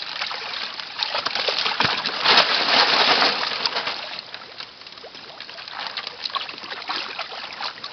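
Water splashing and sloshing as koi are handled in shallow water, with a loud surge of splashing from about two to three and a half seconds in.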